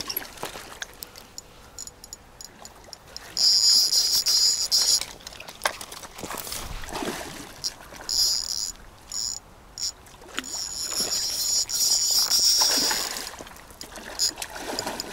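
An insect's high, steady buzzing song in three loud stretches of a second or more each, near the start, in the middle and again longer near the end, with soft water splashing and scattered clicks in between.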